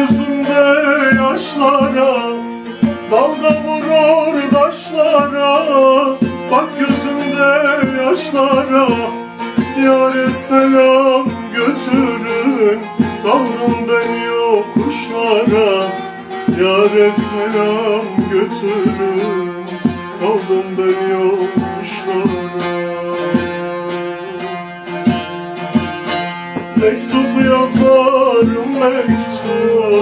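A man singing a Turkish folk song (türkü) in long, wavering, ornamented notes, accompanied by a bağlama (long-necked saz) that is plucked and strummed in a steady rhythm.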